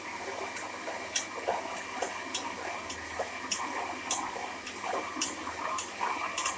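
Electric blender running with egg, garlic and oil being whipped into mayonnaise as it thickens, with a light ticking that repeats somewhat under twice a second.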